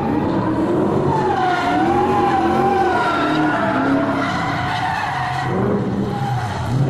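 BMW E39 M5's 5.0 V8 drift car sliding sideways in a drift, its engine revs rising and falling with the throttle over the hiss of skidding tyres. The revs dip about five and a half seconds in and climb again near the end.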